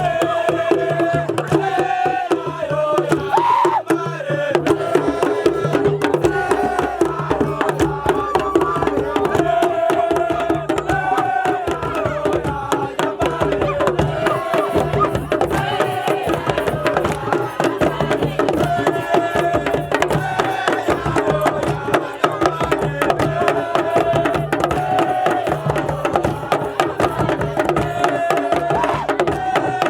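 Music with fast, dense drumming under a wavering melody line and a low bass note that repeats in a steady pattern.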